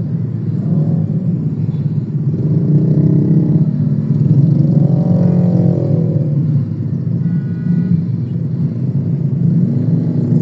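Slow traffic heard from inside a car's cabin: a steady low engine rumble, with motorbike engines rising and falling in pitch as they creep past. A short high beep, about half a second long, sounds about seven seconds in.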